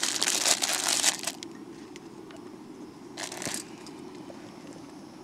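Plastic food packaging crinkling as it is handled, loudest in the first second and a half, with another short rustle about three and a half seconds in.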